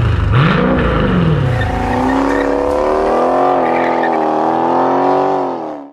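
Dodge Challenger Scat Pack's 6.4-litre Hemi V8 revved through its exhaust: a quick blip that rises and falls back about half a second in. From about two seconds in, a steady pitched drone sags slightly and cuts off abruptly at the very end.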